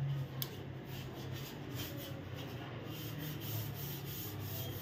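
Cloth rubbing along the blades of a ceiling fan in repeated wiping strokes as the fan is cleaned.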